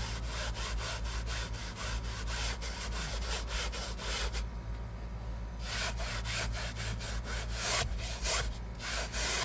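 A stiff hand brush scrubbing a fabric car seat in quick back-and-forth strokes, about three or four a second, stopping for about a second near the middle, then a few more strokes.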